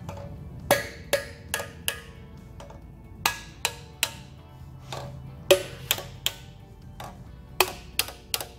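Ball-peen hammer tapping the valve spring retainers of an LQ9 6.0 L V8 cylinder head: sharp, ringing metal taps in groups of three or four, about a dozen in all. The taps jar the valve locks loose in the retainers, and the tone changes once a retainer breaks loose.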